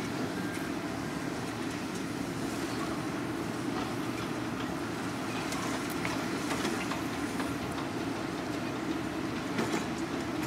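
Hyundai 220 hydraulic excavator's diesel engine running steadily, with scattered faint clicks.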